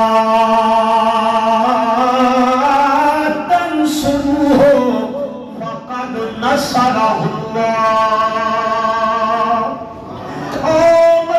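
A man's voice through a microphone and loudspeaker, chanting melodically in the style of Quranic recitation. Each note is held for several seconds, with a short break in the middle and a dip near the end before another phrase begins.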